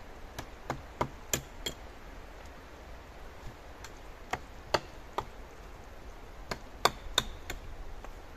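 Sharp tool strikes on wood in three quick runs of three to five blows each, about three blows a second, while the wooden uprights of a bushcraft shelter are worked.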